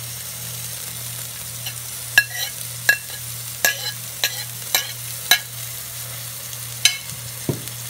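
Onion, shallots, thyme and celery sizzling in hot oil in a pot, a steady hiss. From about two seconds in come about eight sharp taps against the pot, roughly one every half to three-quarters of a second.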